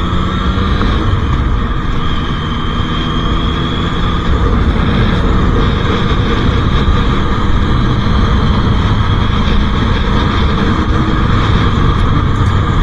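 Triumph motorcycle engine running steadily at cruising speed under a constant rush of wind and road noise. Near the end comes a faint click: the clutch cable snapping.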